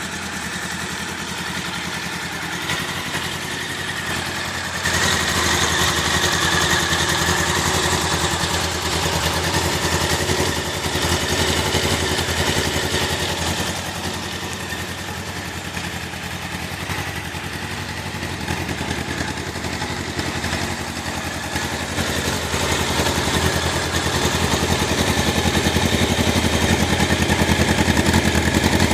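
Honda CBR1000F's liquid-cooled inline-four engine idling through its standard exhaust, a steady even beat. It gets louder about five seconds in, eases back, then builds again towards the end.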